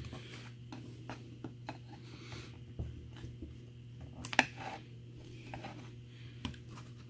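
Steel chisel scraping and prying at hot glue along the base of a wood slab on a particleboard bed: scattered light scrapes and small clicks, with one sharper click about four and a half seconds in, over a steady low hum.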